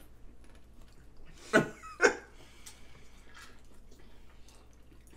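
Two short, loud throat or mouth sounds from a person, about half a second apart and a little under two seconds in, over faint clicking noises of people eating with their hands.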